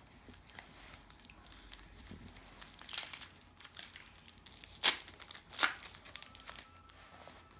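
Trading-card packet wrapper crinkling in the hands and being torn open, with sharp ripping strokes about three, five and five and a half seconds in.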